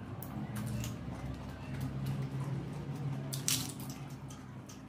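Close-up eating sounds: wet chewing and mouth smacks, with one sharper smack about three and a half seconds in.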